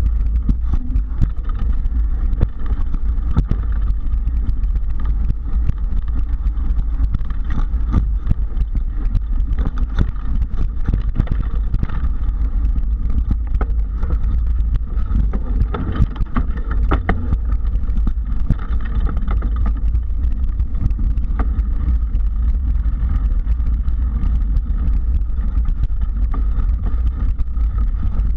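Mountain bike riding fast over a rough dirt trail: a steady low rumble of tyre and wind noise on the microphone, broken by frequent small clicks and knocks as the bike rattles over roots and rocks.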